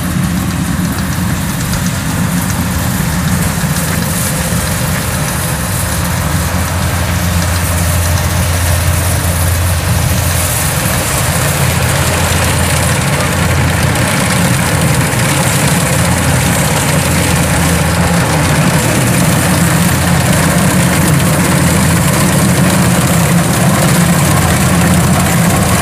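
Kubota DC-93 combine harvester's diesel engine running steadily as the tracked machine crawls through soft, sticky mud in a rice field, getting a little louder toward the end.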